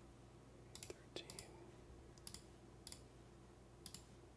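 Faint computer mouse clicks, several of them doubled, spread over a few seconds while picking entries from dropdown menus.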